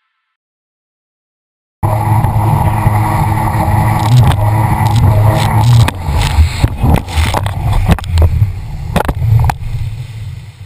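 Jet ski engine running at speed, droning steadily under heavy wind and spray buffeting on the microphone. It cuts in abruptly about two seconds in, after a short silence, and eases off near the end.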